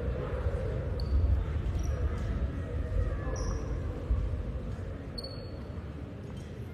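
Echoing gymnasium noise during a volleyball match: players' and spectators' voices chattering, with a few brief high squeaks of athletic shoes on the hardwood court.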